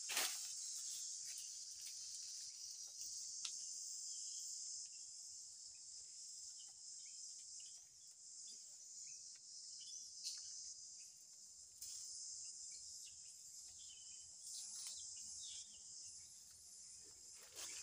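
Steady high-pitched chorus of insects, fading a little midway and swelling again, with a few faint clicks.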